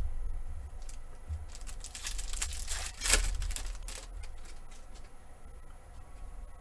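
A foil trading-card pack being torn open by hand, the wrapper crackling and crinkling in a run of sharp rips that is loudest about three seconds in.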